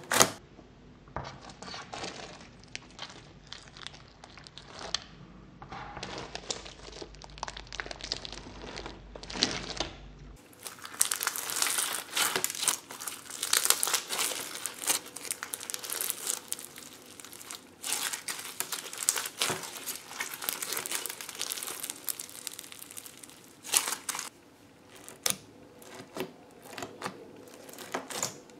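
Bead-filled fishbowl slime being poked and squeezed by fingers, giving an irregular crackling and popping like bubble wrap. The crackling grows denser and louder about ten seconds in.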